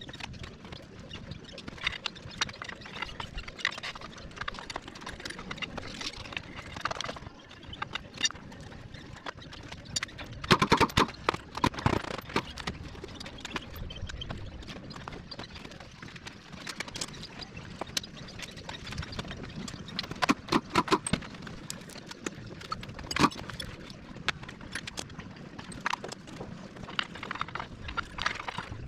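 Irregular clinks and knocks of hand tools and metal parts as a Honda K20 engine is taken apart, busiest in short flurries near the middle.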